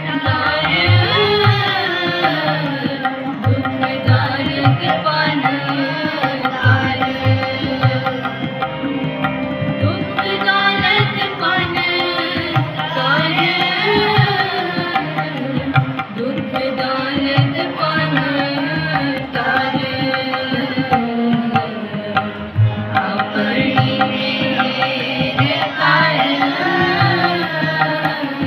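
Harmonium and tabla playing Gurbani shabad kirtan, the harmonium holding a sustained melody over steady tabla strokes, with a group of voices singing along.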